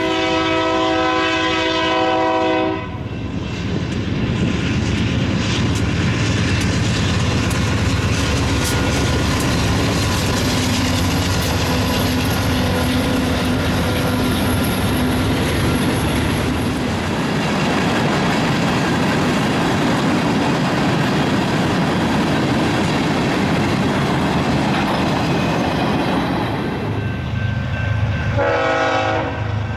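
Freight train locomotive air horn sounding a multi-note chord for the first few seconds. Then freight cars roll past with a steady rumble and clatter of wheels on rail. Near the end a locomotive horn blows again briefly, over a low engine throb, as a train approaches a grade crossing.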